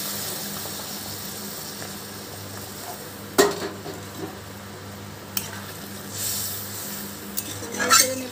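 Hot water pouring into a steel pan of potato curry trails off in the first second. Then a metal spatula stirs the watery curry, clinking sharply against the pan about three seconds in, again about two seconds later, and several times near the end, over a faint hiss from the pan and a low steady hum.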